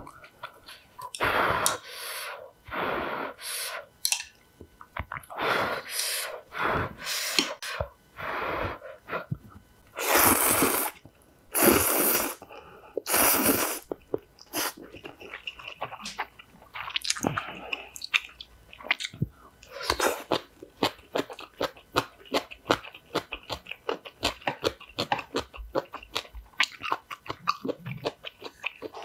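Spicy instant ramen noodles slurped in a series of long, loud sucks, the loudest three around the middle. After that comes close-miked chewing, with many small clicks.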